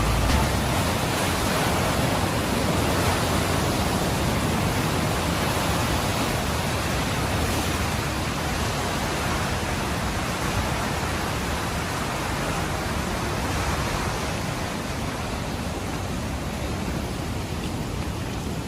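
Water rushing steadily: a dense, even hiss with no breaks or distinct events.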